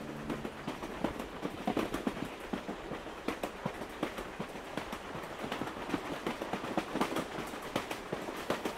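Quiet background ambience with many irregular light clicks and knocks.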